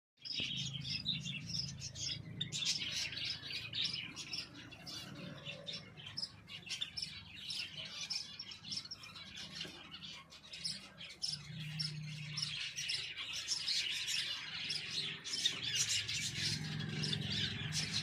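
Birds chirping rapidly and continuously in quick, high chirps, with a low hum coming and going underneath.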